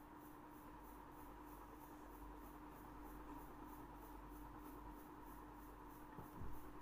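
Faint scratching of a pen writing a word on a paper worksheet.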